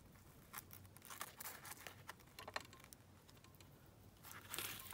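Faint rustling and small clicks of a ribbon being handled and tied into a bow, a little louder near the end.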